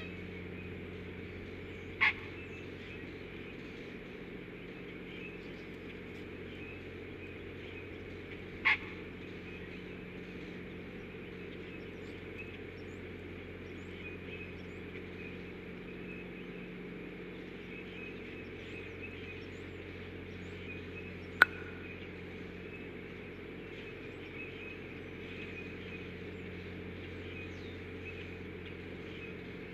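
Two short, loud bird calls about six seconds apart over a steady outdoor background with a low hum, then a single sharp click near the middle.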